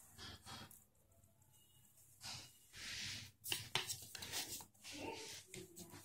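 Small scissors snipping into the plastic frame of a Daihatsu Terios cabin air filter, heard as several sharp clicks in the second half, with rustling as the filter is handled.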